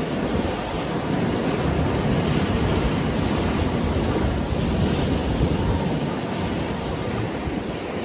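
Choppy sea surf breaking and washing over rocks along the shore, a continuous churning wash of water, with wind buffeting the microphone.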